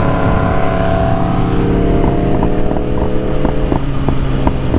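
BMW S1000RR sport bike's inline-four engine running steadily at cruising speed, easing off slightly about two seconds in, heard from the rider's seat with heavy wind rushing over the microphone. Light clicks come and go over the second half.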